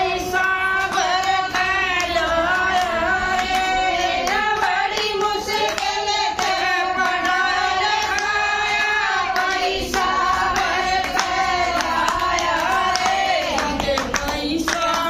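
A group of women singing a devotional song (bhajan) together, clapping their hands along to it.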